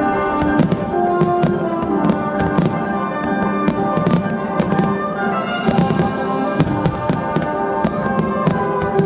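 Fireworks bursting in an irregular run of sharp bangs over loud music with long held notes.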